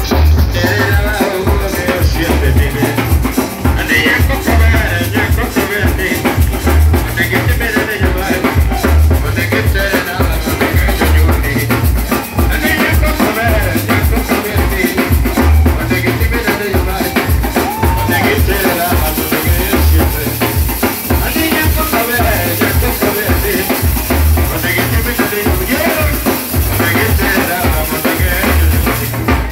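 Loud music with a heavy, steady bass-drum beat and percussion, played through a club sound system, with a performer's voice on a microphone over it.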